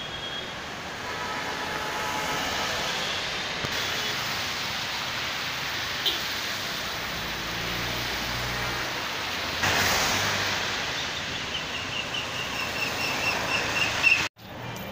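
Traffic on a rain-soaked street: a steady hiss of rain and tyres on wet asphalt, with a car swishing past about ten seconds in. Near the end comes a quick run of short high chirps, and the sound cuts off abruptly just before the end.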